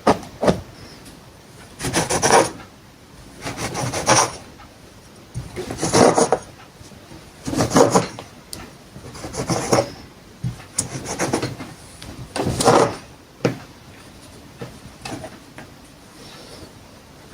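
Rhythmic rasping, scraping strokes against wood, a loud stroke roughly every two seconds with fainter ones in between.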